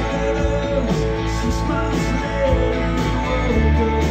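Live rock band playing a song: electric guitars over bass and drums.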